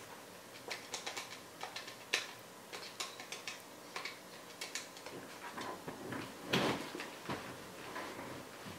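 Keypad buttons on a corded landline phone handset clicking as a number is dialled, several light presses a second. About six and a half seconds in, a louder handling noise as the handset is raised to the ear.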